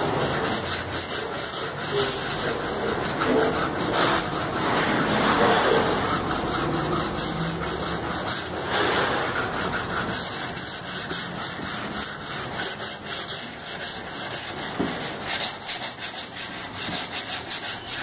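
Waterproof sandpaper rubbed by hand back and forth over the wet, painted steel of a refrigerator door: a steady scrubbing noise that swells and dips with the strokes. The sanding takes down old paint and rust blisters until the surface is smooth.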